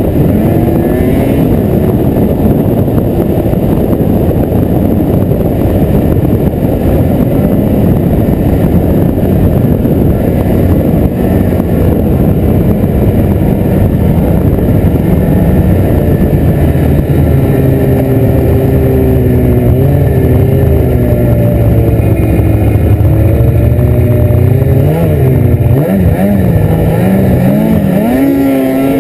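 Ski-Doo snowmobile engine running at speed under the rider. Its note holds steady through the middle, then rises and falls a few times near the end as the throttle changes.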